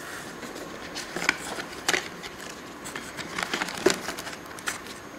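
Packaging handled by hand: a cardboard phone-box tray is lifted out and plastic-bagged accessories rustle, with irregular crinkling and several sharp clicks and taps.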